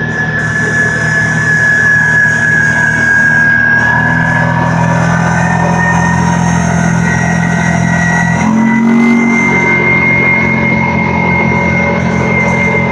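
Kawasaki Teryx S LE side-by-side's engine running steadily under way, with a steady high whine that slowly rises in pitch. The engine note shifts about eight and a half seconds in.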